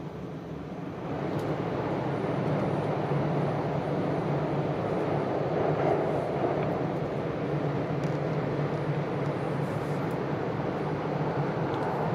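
Running noise inside the upper-deck cabin of a JR East E4 series Max double-decker Shinkansen moving along the line: a steady noise with a low hum, growing louder about a second in.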